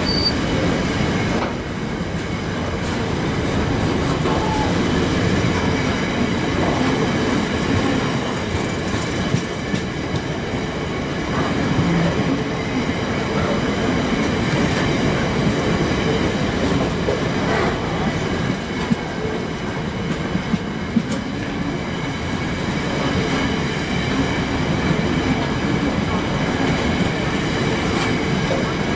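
Intermodal freight train's container flat wagons rolling past at close range, a steady heavy rumble of wheels on rail with scattered sharp clicks as the wheelsets cross the rail joints.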